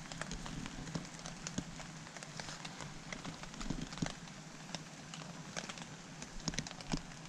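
Small wood fire crackling inside a folding metal twig stove, with irregular sharp snaps several times a second.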